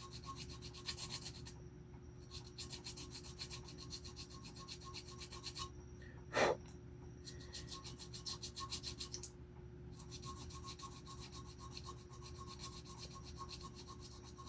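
Hand file rasping quickly back and forth over hardened black super glue built up on a tobacco pipe stem's button, reshaping the repair, with a few short pauses between runs of strokes. One short, louder noise comes about halfway through.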